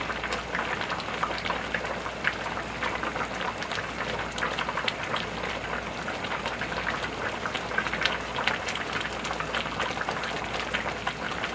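Big stainless-steel stockpots of pork back-bone and dried radish-greens soup simmering on a gas stove: a steady, dense crackle of small bubbles popping in the thick broth.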